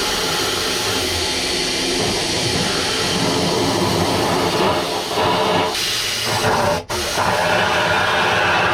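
Compressed air from an air hose hissing loudly and steadily into a boat hull's drain, blowing trapped water out of the hull. The air cuts out for a moment about seven seconds in, then resumes.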